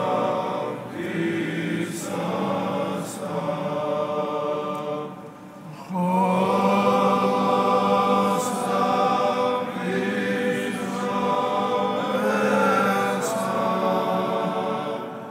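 Choir singing a slow chant in several parts over a held low note. The singing dips briefly about five seconds in, then a new, louder phrase begins.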